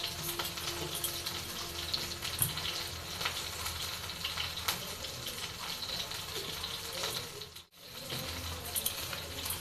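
Steady sizzling hiss from a hot pan on the stove, with scattered light ticks. It cuts out briefly near eight seconds and then resumes.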